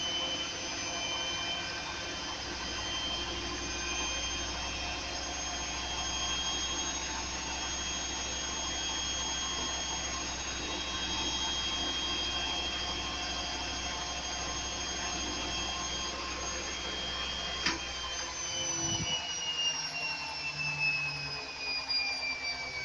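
Ardo washing machine on a high-speed spin, a steady hum with a high whine. About eighteen seconds in the drum starts winding down: the whine falls in pitch, the low rumble drops away and a few knocks follow. The owner hears the noise as coming from the drum bearings.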